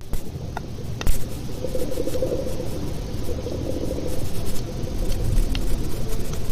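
Low, steady rumbling noise picked up by a microphone lowered down a pipe, with a few sharp clicks about a second in and a faint wavering hum through the middle.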